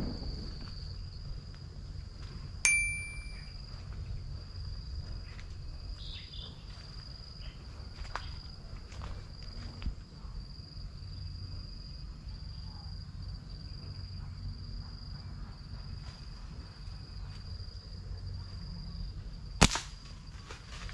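Insects trilling steadily on one high note, with a single ringing metallic ping about two and a half seconds in and a sharp click near the end.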